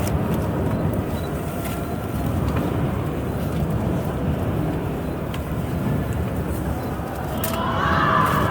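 Steady background hubbub of a busy event crowd, with a few sharp clicks and a louder swell near the end.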